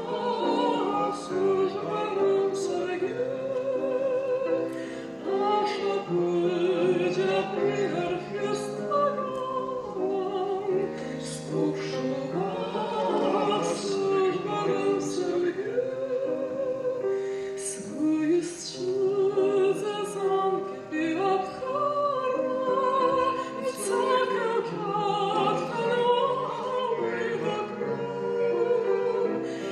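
A song sung in Abkhaz in a classical style with strong vibrato, accompanied by grand piano.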